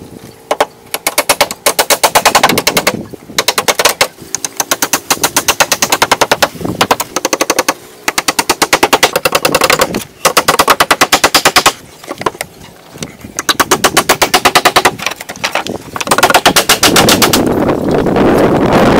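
A hand tool clicking rapidly, about ten sharp clicks a second, in repeated bursts of one to two seconds with short pauses between. Near the end a rougher, continuous scraping noise takes over.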